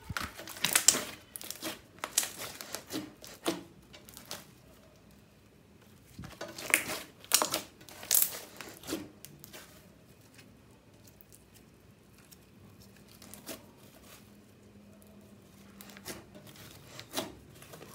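Fluffy slime being squeezed, stretched and kneaded by hand, giving dense crackling clicks. There are loud flurries over the first few seconds and again from about six to nine seconds, and only scattered, quieter crackles after that.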